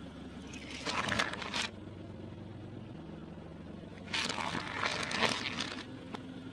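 Car tyre rolling over wooden coloured pencils, cracking and crunching them in two bursts, one about a second in and a longer one from about four seconds in, over the steady low hum of the car's engine.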